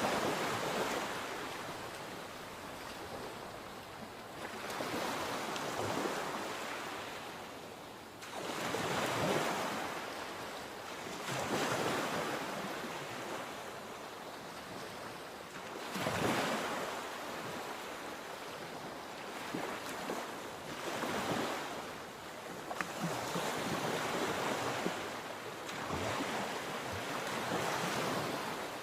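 Sea waves breaking and washing ashore, the surf swelling and easing again every few seconds, with some wind on the microphone.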